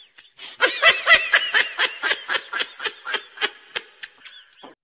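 High-pitched laughing sound effect: a quick run of ha-ha pulses, about five a second, starting loud about half a second in and tapering off near the end.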